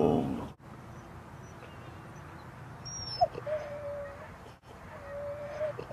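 Siberian husky vocalizing: a loud pitched call cuts off about half a second in, then two soft, thin whines about a second long each, one in the middle and one near the end.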